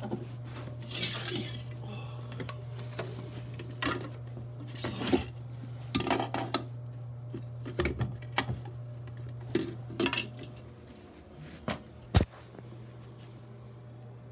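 Scattered light clinks and knocks of hard objects being handled, over a steady low hum that fades out about eleven seconds in; a sharp knock near the end is the loudest.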